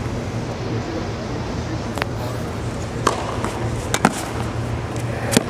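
Tennis practice rally on a hard court: a tennis ball struck by rackets and bouncing, about five sharp pops roughly a second apart, two of them in quick succession near the middle, over a steady background hum and murmur.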